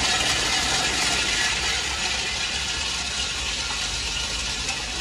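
Industrial snail tail-cutting machine running loaded with snails: a dense, steady clatter of shells rattling inside the machine over the motor's hum, a little louder in the first couple of seconds.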